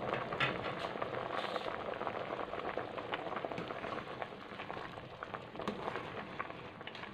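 Thin coconut milk with cassava pieces and pandan leaves boiling in an aluminium pot: a steady bubbling, fizzing and crackling.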